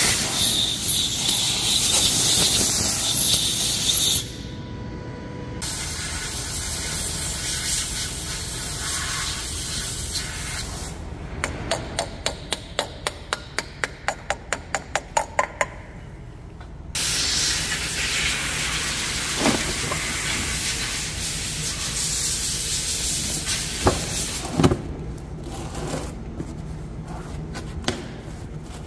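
Long stretches of hissing spray, loudest at the start and dropping off about four seconds in. In the middle comes a run of about fifteen evenly spaced clicks, some three a second, and near the end there are a couple of single knocks.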